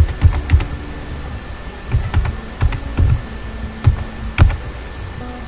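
Typing on a computer keyboard: irregular keystrokes in small runs with short pauses between them, one louder keystroke near the end.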